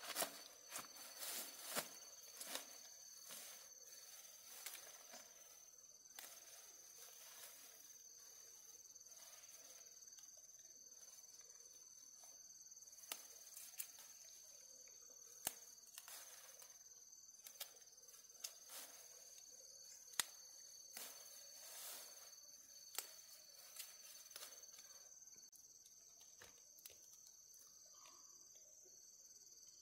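Faint steady high-pitched chirring of insects, with scattered sharp clicks and soft knocks throughout, more of them in the first few seconds.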